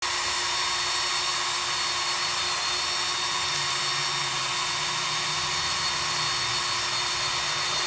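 Handheld power drill running steadily, its bit boring down into a wooden board, with a constant whine over the grinding of the bit in the wood.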